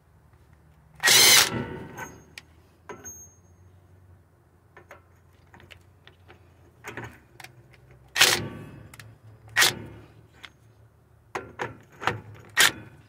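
Earthquake impact wrench hammering a tie rod end nut down in short bursts: a longer burst about a second in, another around eight seconds, then a quick run of short bursts near the end as the nut pulls tight.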